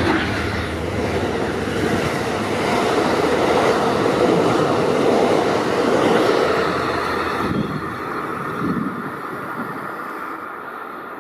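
Diesel-hauled passenger train passing through a station at speed, with a steady rush of wheels and coaches on the rails. It fades over the last few seconds as it moves away.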